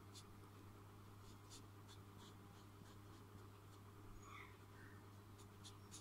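Faint scratching of a felt-tip marker on paper in short, scattered strokes, with a cluster near the end, over a low steady hum.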